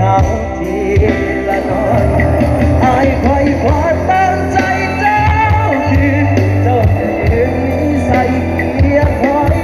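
Loud Thai pop song with singing and heavy bass, played over a rot hae procession truck's sound system.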